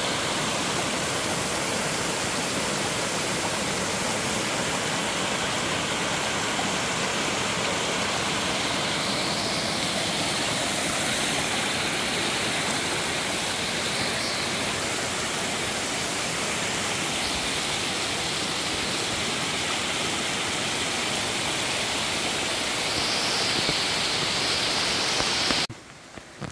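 Waterfall rushing: a steady, dense noise of falling water that drops away suddenly near the end.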